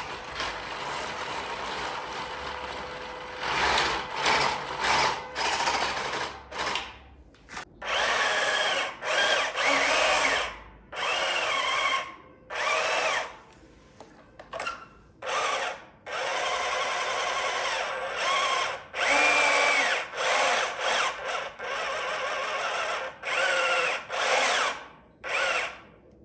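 Small electric motors and gearboxes of radio-controlled toy construction vehicles whining in repeated stop-start bursts, each lasting a second or so. The pitch rises and falls as the motors speed up and slow down.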